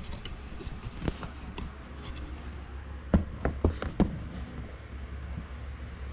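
Hands working a tight hose off its fitting in a car's engine bay: sharp clicks and knocks of plastic and rubber parts, one about a second in and four in quick succession around three to four seconds in, over a steady low hum.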